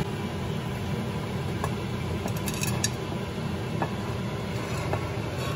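Crushed mushrooms being tipped and pushed by hand from a plate into a pot of frying onions: soft rustling and a few light taps, over a steady low rumble.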